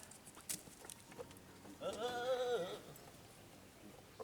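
A single wavering animal cry, about a second long, with its pitch dropping at the end. A few faint clicks come before it.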